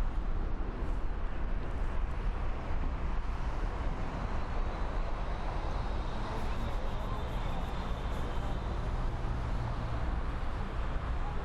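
Jet airliner engines running at takeoff power, heard as a steady rumble with a hiss.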